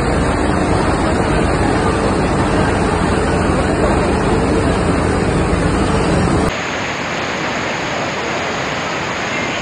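Floodwater rushing hard through a courtyard and around steel barricades: a loud, steady roar of torrential water. About two thirds of the way through it cuts abruptly to a quieter, duller rush.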